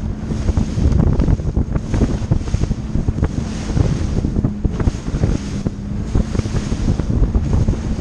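Strong wind buffeting the microphone as a bass boat runs fast over choppy water, the hull hitting the waves in irregular thumps, with the outboard motor's steady hum underneath.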